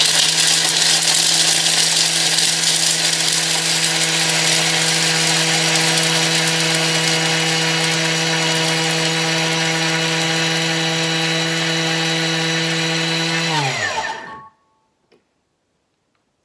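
Thermomix blade spinning at top speed to grate chunks of Parmesan cheese: a loud, steady motor whine over a dense, gritty clatter of hard cheese being broken up in the bowl. About fourteen seconds in, the motor winds down with a falling pitch and stops.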